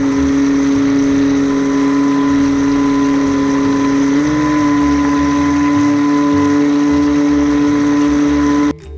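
Small electric motor of a radio-controlled toy speedboat whining steadily, heard from a camera mounted on the boat, with water rushing along the hull. The pitch steps up slightly about four seconds in, and the sound cuts off suddenly near the end.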